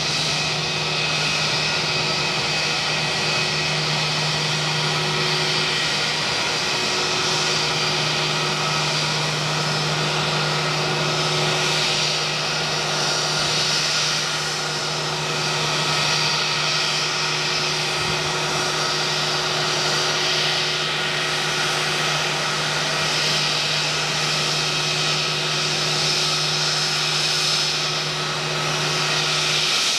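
Airbus A320-232's IAE V2500 turbofan engines running steadily at taxi power as the airliner rolls in toward the gate, a continuous whine and rush with no change in level.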